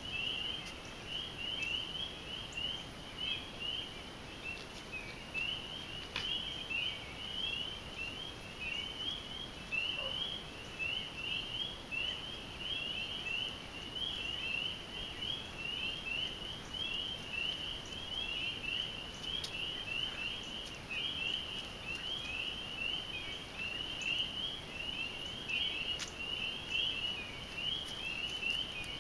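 Chorus of many frogs calling together, a dense, continuous mass of short, high-pitched calls overlapping one another.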